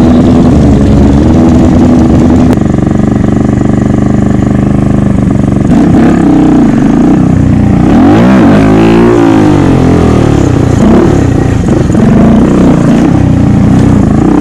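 Motorcycle engine running loudly at fairly steady revs for the first few seconds, then revved up and down again and again, with the biggest rise and fall about two-thirds of the way through.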